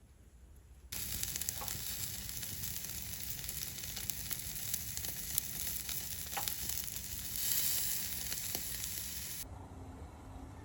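Food sizzling in a hot pan: a steady hiss with a few small pops. It starts abruptly about a second in and stops abruptly near the end.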